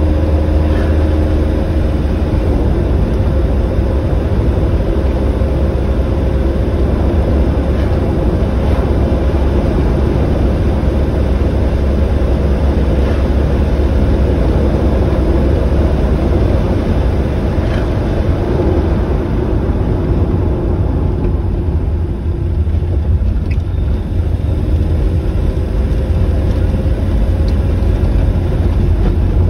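A vehicle driving along a road: a steady, loud low rumble of engine and road noise, with a faint steady engine hum above it. It eases slightly about three-quarters of the way through.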